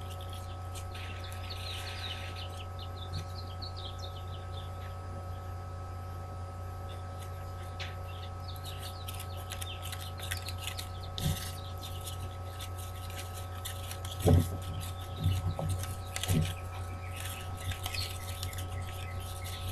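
Steady low hum with faint bird chirps in the first few seconds. Later come rustles and a few soft knocks of grosgrain ribbon being pinched and handled, the loudest knock about fourteen seconds in.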